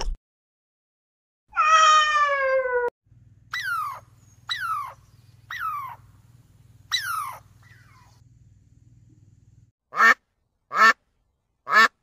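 A series of animal calls: one long call falling in pitch, then four short calls each sliding down in pitch, and near the end a run of short, evenly spaced calls.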